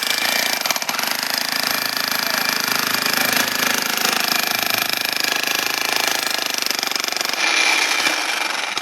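Jackhammer-type demolition breaker chiselling a reinforced-concrete building pillar, running in one long, rapid, steady hammering burst. It stops suddenly near the end.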